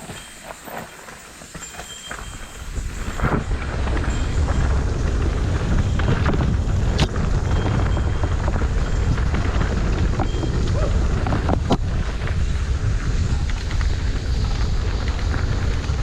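Electric mountain bike picking up speed on a dirt trail: from about three seconds in, wind buffets the microphone and the tyres rumble steadily over the ground, with a couple of sharp clicks from the bike along the way.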